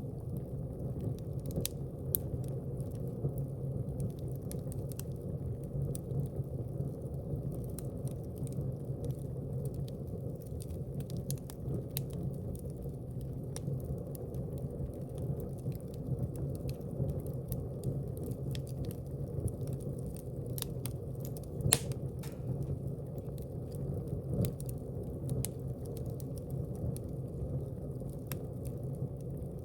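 Wood fire burning in a fireplace: a steady low rumble of flames with scattered crackles and pops, and one sharper pop about three-quarters of the way through.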